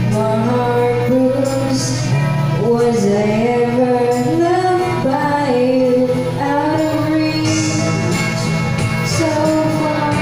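A woman singing into a handheld microphone over a karaoke backing track, holding long notes in a smooth melody.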